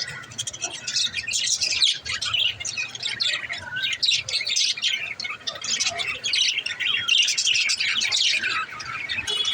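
Budgerigars chirping and chattering: many rapid, overlapping high chirps and squawks with no pause.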